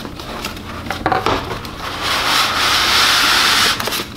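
Cardboard box handled with a few light knocks, then a styrofoam packing insert sliding out of the cardboard box, a steady rubbing scrape lasting about two seconds that stops near the end.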